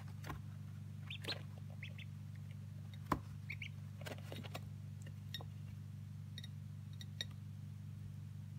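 Day-old Staropolska ducklings feeding from a plate: scattered sharp clicks and taps of beaks and feet, with a few short high peeps in the first few seconds. A steady low hum runs underneath.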